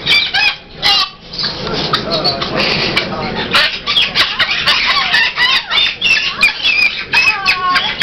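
Caged parrots and cockatoos squawking and chattering, with short harsh calls coming one after another.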